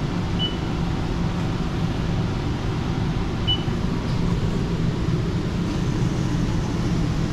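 Steady drone of a freshly powered-up Haas VF-2SS CNC vertical mill, with two short high beeps about three seconds apart.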